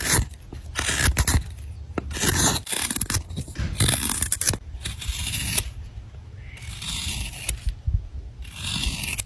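Carving knife shaving curls from a wet, green-wood spoon blank: repeated hissing slicing strokes, roughly one a second, with small sharp clicks between them.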